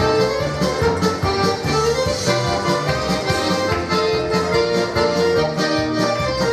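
Button accordion played solo: a Russian folk tune, the melody in held notes over a regular beat of bass and chords.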